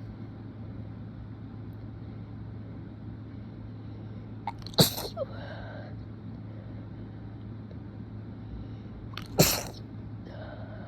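A man sneezing twice from allergies, two strong wet sneezes about five seconds apart, each a sudden sharp burst. A steady low hum runs underneath.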